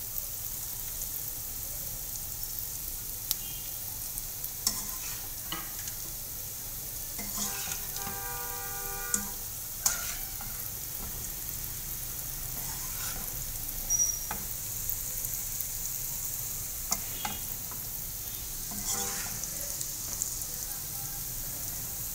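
Onion-tomato masala sizzling in a wok while a metal spoon stirs it and fried bitter-gourd slices are mixed in, with occasional sharp clicks of the spoon against the pan.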